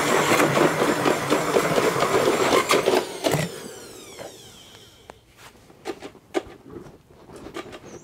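Small electric blender's motor running loud and rattling, then switched off about three and a half seconds in and winding down with a falling whine, followed by a few light clicks and knocks as it is handled. The machine is broken by this run, blamed on too heavy a hand.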